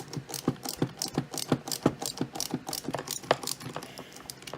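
Quick, irregular clicking and rattling of small hand tools and RC truck parts being worked on a bench, several sharp clicks a second.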